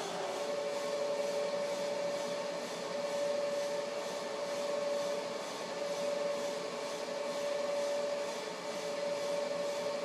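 Metal lathe running steadily with a steady whine while a scissors-type knurling tool's two wheels roll against the spinning brass workpiece, hand-fed to form a knurl.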